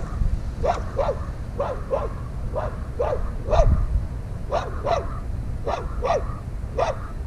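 A dog barking repeatedly, about a dozen short barks, many of them in quick pairs, over a low rumble.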